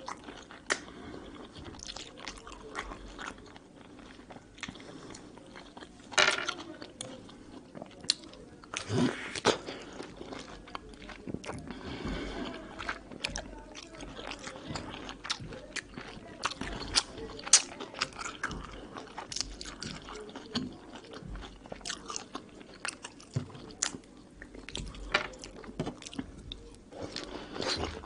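A person biting into and chewing peeled mandarin segments: many short, sharp bite and chewing sounds at an irregular pace.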